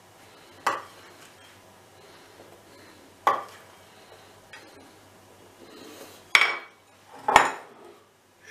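Wooden spoon knocking against a glass dish and a serving platter as cooked meat pieces are spooned out: four sharp knocks, irregularly spaced a second or more apart, with a fainter one between them.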